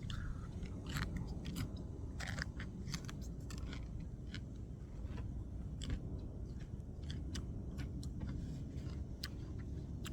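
A person chewing crunchy food: irregular crisp crunches and clicks, over a steady low background rumble.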